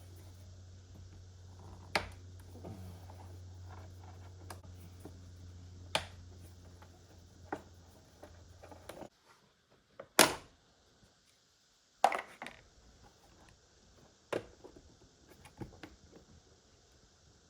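Scattered sharp clicks and knocks of hand tools and metal and plastic parts being handled while a motorcycle is taken apart, about seven in all. A low steady hum runs under them and stops about nine seconds in.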